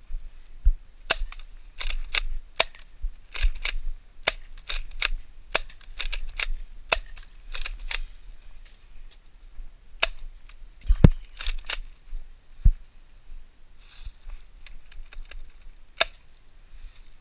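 Nerf blasters firing: a quick string of sharp pops for the first eight seconds or so, then scattered shots, the loudest with a low thump about eleven seconds in.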